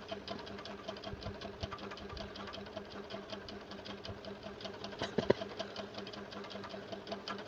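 A small machine running with a rapid, even ticking over a steady low hum, and a short louder sound about five seconds in.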